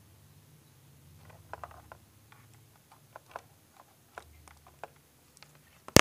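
Irregular small clicks and taps of handling as multimeter test probes are touched against the motor's lead wires, ending in one loud, sharp click near the end, over a low steady hum.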